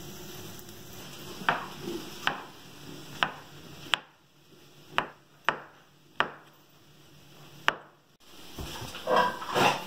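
Chef's knife slicing mushrooms on a cutting board: single sharp chops of the blade hitting the board, about one every half second to second. A brief burst of louder clattering noise comes near the end.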